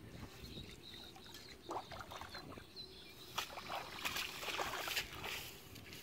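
Shallow muddy water sloshing and splashing as someone wades through it, in irregular bursts that are busiest about three to five seconds in.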